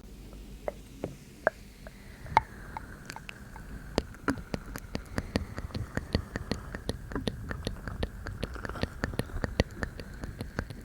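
Close-miked wet mouth sounds: scattered clicks and smacks, turning into a rapid run of clicks from about two seconds in, over a faint breathy hiss.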